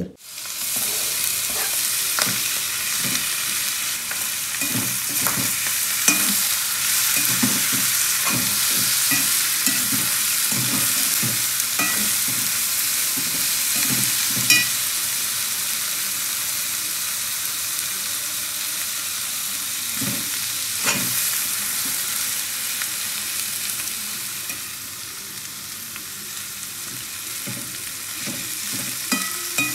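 Onions, dried fish and tomato sizzling in a cast-iron wok on a gas burner. A metal spoon stirs through the food, scraping and clicking against the pan.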